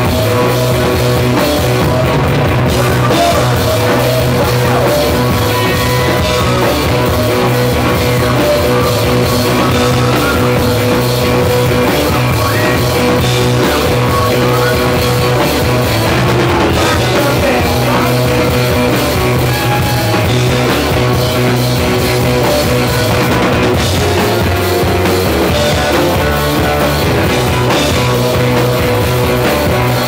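Live rock band playing loudly and without a break: electric guitar, bass guitar and drum kit.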